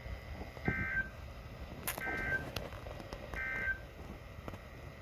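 Three short bursts of EAS SAME data tones from a weather radio broadcast, about 1.3 seconds apart, over faint radio hiss. Their shortness fits the end-of-message code that closes an alert.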